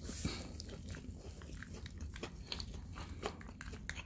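Close-up eating sounds: biting into and chewing a fried chicken sandwich, with a soft crunch at the start followed by many small wet mouth clicks.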